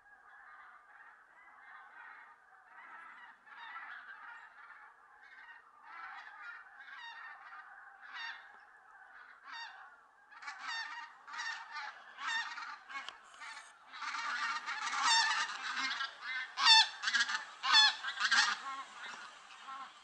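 A flock of bean geese calling: a dense chorus of overlapping honks that swells much louder about ten seconds in.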